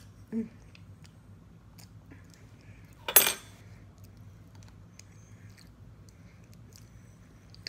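A metal fork clinks and scrapes against a plate once, sharply, about three seconds in, amid soft eating sounds. A brief low pitched sound comes just after the start.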